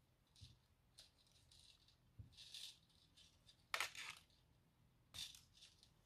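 Faint rattling and scraping of thin craft wire being pulled in and out through a coiled wire nest, in a few short rustles, the loudest about four seconds in.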